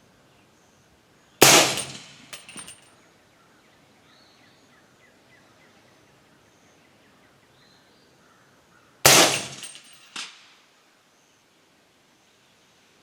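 Two shots from a suppressed 300 AAC Blackout AR-15 firing subsonic loads, about seven and a half seconds apart, each a sharp crack with a short decaying tail. Each shot is followed about a second later by a fainter sharp click or two.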